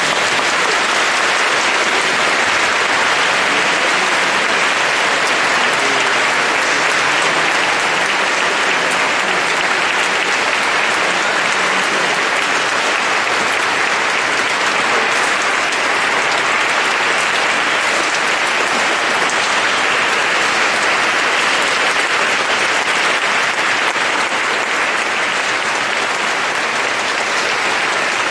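A large congregation clapping in sustained, steady applause.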